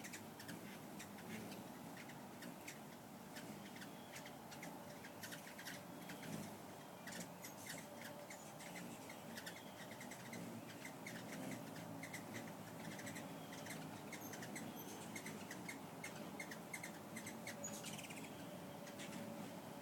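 Hummingbirds chipping around feeders: rapid short, high chip notes repeated several times a second, thickest from about seven seconds in, over a faint steady low hum.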